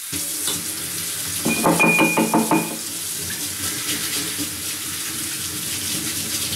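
Kitchen tap turned on and running steadily into the sink, starting suddenly. About a second and a half in, a louder pitched rattle with a thin whistle-like tone sounds briefly over the water.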